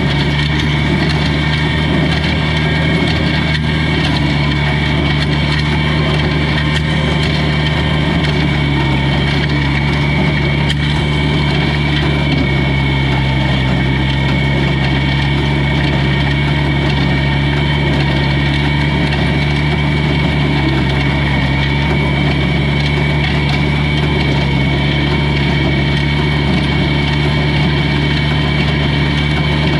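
Old tractor engine running steadily at a constant speed.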